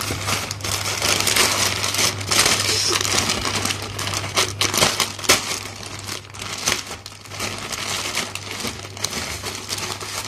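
Plastic postal mailer bag crinkling and rustling as it is handled and turned over by hand, in dense irregular crackles, over a steady low hum.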